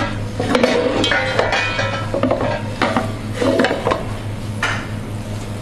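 A metal ladle scraping and clinking against a wok and a metal dish as oil is skimmed off frying aubergine, with repeated clinks and a light sizzle underneath.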